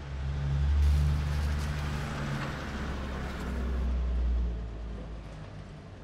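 A deep rumble with a rushing hiss that swells about two seconds in and fades away after about four and a half seconds.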